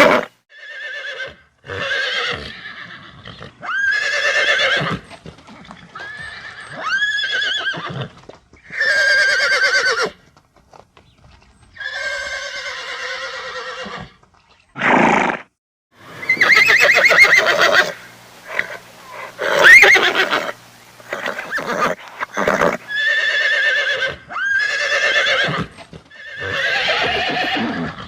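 Horse whinnying and neighing over and over: a series of separate quavering calls, each about one to two seconds long, with short pauses between them.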